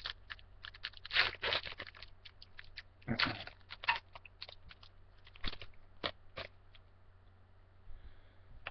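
Foil baseball-card pack wrapper crinkling and tearing in two bursts, about a second and three seconds in, followed by a few light clicks of cards being handled and set on the desk.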